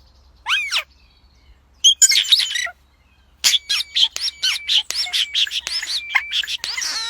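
Birds chirping and calling: a single sweeping call about half a second in, a short burst of chirps near two seconds, then a dense run of quick chirps and whistles through the second half.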